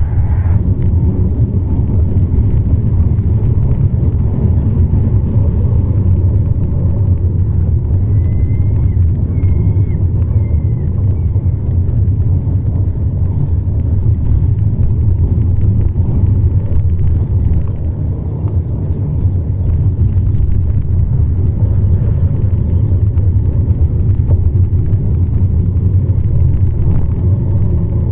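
Steady low rumble of wind buffeting the microphone of a camera riding along on a moving bicycle, with a few faint high squeaks about eight to eleven seconds in.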